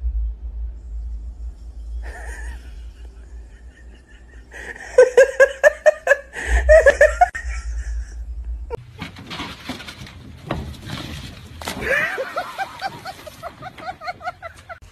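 A person laughing hard in rapid bursts, loudest about five to seven seconds in. After a cut near nine seconds, more laughing comes over background noise.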